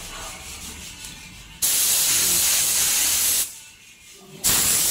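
Gravity-feed spray gun blowing compressed air from an air compressor in two loud hisses: the first starts abruptly about a second and a half in and lasts nearly two seconds, and after a pause of about a second the second starts just as abruptly near the end.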